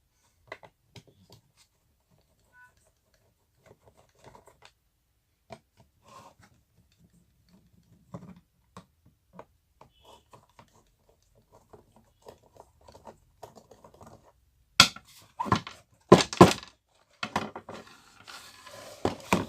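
Small metal clicks and taps from a spanner or nut driver working on the nuts of a wall fan's motor housing. Over the last few seconds come several louder knocks and a clatter of metal parts being handled.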